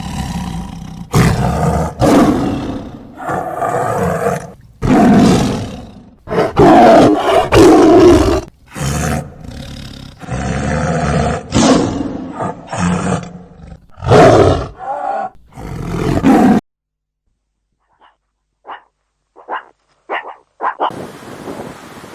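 A large animal roaring and growling in a series of loud calls, each a second or two long, which cut off abruptly about 16 seconds in. After a short gap come a few brief, higher calls, then a steady rush of wind noise near the end.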